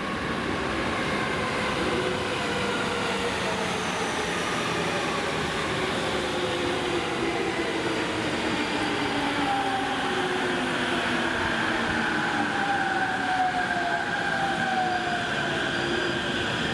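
Electric commuter train running through the station with a steady rumble, its traction motors whining in several tones that glide in pitch.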